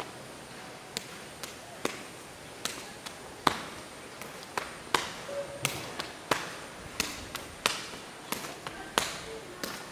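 Sharp slaps of hands and forearms meeting as two karateka loop blocks and punches in a partner drill. The slaps start about a second in, come a few at a time, then settle into a quick, even rhythm of about three a second.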